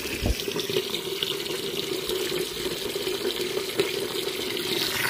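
Water running steadily out of a garden hose from a well system's boiler drain as the pressure tank is drained down with the pump switched off.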